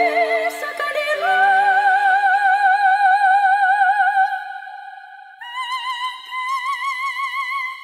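Background music: a high operatic singing voice holding long notes with a wide vibrato, one long note and then a higher one about five and a half seconds in.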